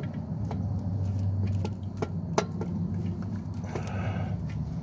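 A few light metallic clicks and clinks as an alternator mounting bolt is started by hand, over a steady low hum.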